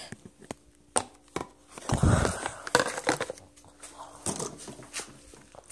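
Phone-microphone handling noise: scattered clicks and knocks, with a louder rustling thump about two seconds in, as the phone brushes against hair and a foam toy tube.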